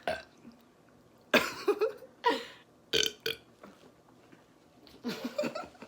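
A person burping on purpose, a run of about four loud burps with quiet gaps between them. The first comes about a second and a half in, a short sharp one about three seconds in, and the last near the end.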